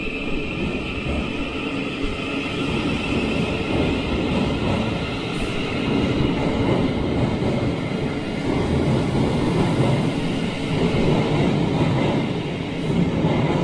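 Thameslink Class 700 electric train pulling out of the platform and accelerating past: a steady rumble of wheels on the rails, with a high electric whine that fades after about six seconds.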